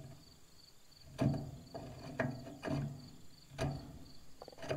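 A thread-cutting tap being turned by wrench in a tractor manifold: about five sharp metallic clicks with short creaks, the tap biting and cutting new threads. Crickets chirp steadily underneath.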